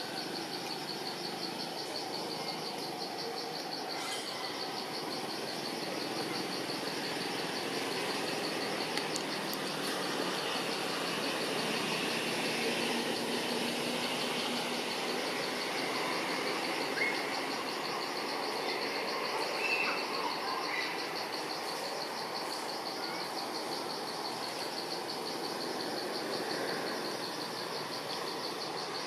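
A steady chorus of insects trilling, a rapid pulsing high whirr over a constant background hiss, with a few short bird chirps past the middle.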